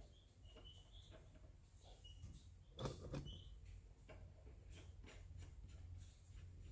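Near silence: room tone with faint, short high chirps and small clicks, and a light knock about three seconds in.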